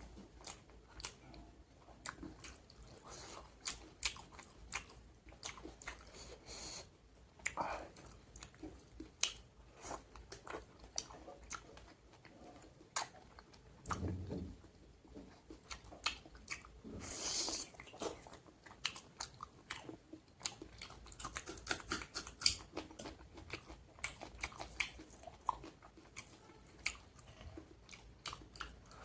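Close-miked eating: a person biting and chewing pork curry with raw onion and salad, wet smacking clicks and crunches at an irregular pace, with one louder rushing noise about 17 seconds in.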